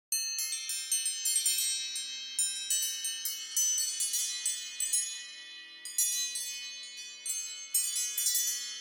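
iPhone (iOS) alarm tone of wind-chime-like ringing notes. It starts suddenly from silence, and many high struck tones cascade and overlap in quick irregular clusters, each ringing out.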